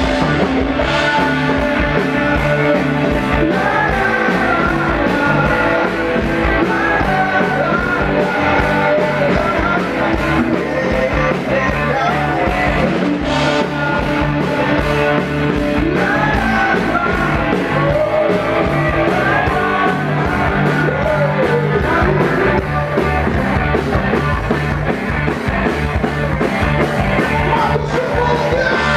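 Rock band playing live, with a singer over the band.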